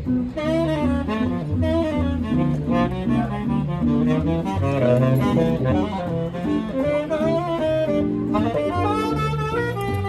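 Live small-group jazz: a tenor saxophone plays a flowing melody over electric guitar chords and a walking bass line.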